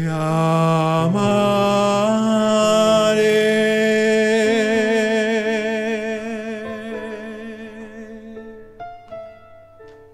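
Closing bars of a sung ballad: a long held final note with wide vibrato over sustained accompaniment, stepping up in pitch twice early on and then fading away. A few soft, separate piano notes follow near the end.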